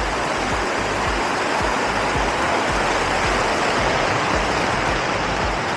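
Steady rain falling, a loud, even hiss.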